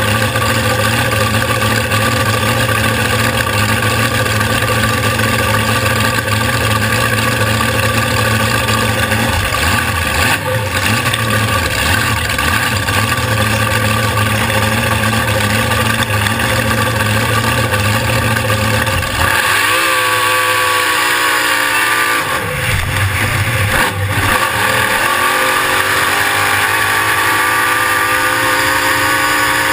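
Supercharged alcohol-burning 540 cubic-inch V8 of a flatbottom drag boat running on the water, a new engine on its first test outing. It holds a steady note for most of the first two-thirds, then about two-thirds of the way in the note climbs, dips briefly, and climbs again.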